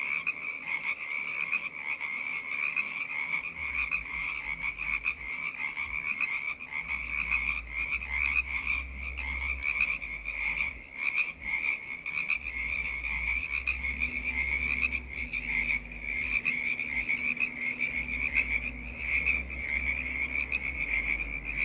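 Chorus of many frogs calling together, a continuous high-pitched trilling that never pauses.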